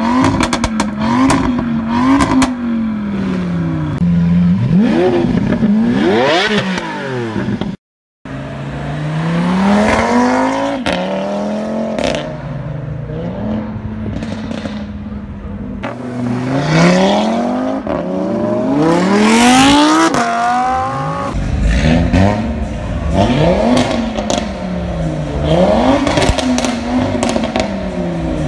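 Tuned Audi RS3's turbocharged five-cylinder engine breathing through a Milltek exhaust. It is revved in quick rises and falls, then pulls hard through several gears, its pitch climbing and dropping at each shift. It goes back to short revs near the end, with a brief break in the sound about eight seconds in.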